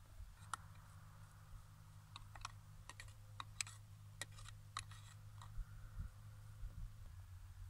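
Metal spoon clicking and scraping against the inside of a cooking pot as cooked rice is scooped out: a quick irregular run of light clicks, stopping near the end, over a steady low rumble.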